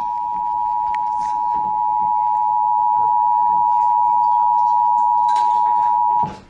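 Emergency Alert System attention signal: two steady tones sounded together at an even level, cutting off abruptly near the end.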